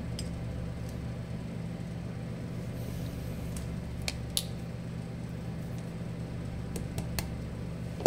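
A steady low hum throughout, with a few light clicks of small metal and plastic parts being handled as a surgical drill handpiece is reassembled, and a sharper click at the very end.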